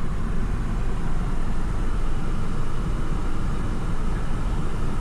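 Steady road and engine noise heard inside a moving car's cabin, a constant low rumble.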